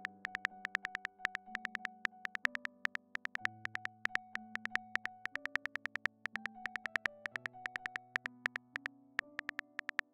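Phone keyboard typing sound effect: quick, irregular key clicks as a text message is tapped out, over soft synthesizer background music.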